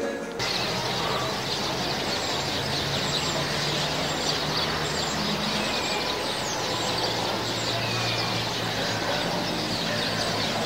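Outdoor ambience: a steady hiss of background noise with small birds chirping now and then, and a low engine hum through most of it.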